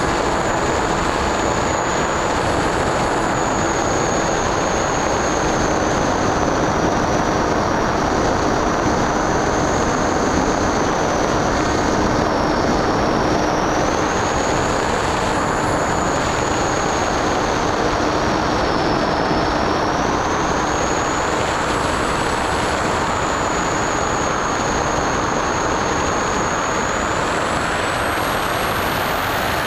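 Skyhunter RC plane's electric pusher motor whining in flight, its pitch wavering up and down with the throttle, under a loud, steady rush of wind over the onboard camera.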